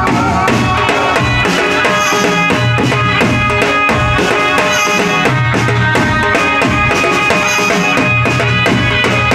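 Loud instrumental Navratri folk music: drums and tabla keeping a steady beat under long held melody notes.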